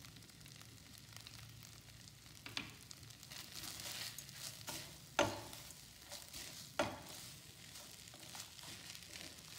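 A spatula stirring and turning cooked rice in a granite-coated nonstick pan on a gas flame, over a faint sizzle. Three sharp knocks of the spatula against the pan, the loudest about five seconds in.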